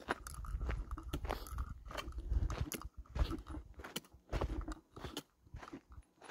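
Footsteps crunching on a gravelly dirt trail at a walking pace, about two steps a second, with a low rumble on the microphone in the first half.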